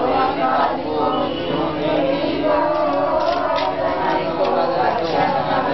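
A group of voices chanting together in unison, without pause.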